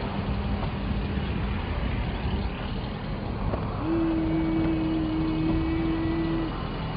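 Vehicle engine running steadily. A single steady whine comes in about four seconds in and cuts off about two and a half seconds later.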